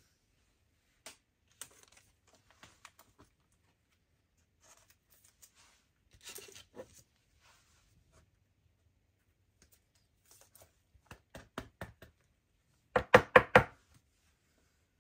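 A trading card being slipped into a sleeve and rigid plastic toploader: soft rustles and light plastic clicks, then near the end a quick run of about five sharp taps.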